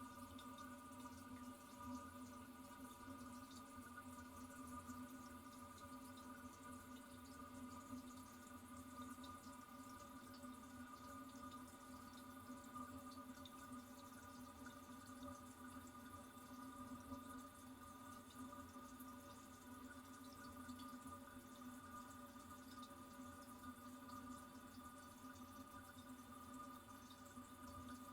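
Toilet cistern refilling: a faint, steady whine and hiss of water through the fill valve, with light drips.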